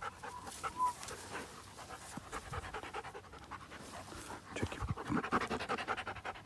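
Seven-month-old Doberman panting fast and evenly, close up.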